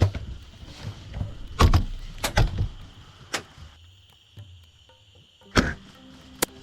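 Sharp clicks and knocks at uneven intervals, about half a dozen, over a steady high-pitched insect drone.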